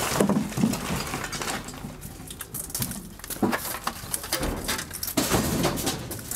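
Scrap iron and old metal items clattering and knocking as they are picked off a junk pile and loaded into a van, irregular clanks with a few duller thuds.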